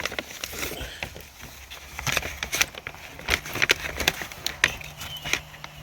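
Crinkling packaging and small plastic parts clicking and rattling as a lighting kit is handled and unpacked, with a faint steady low hum coming in about halfway through.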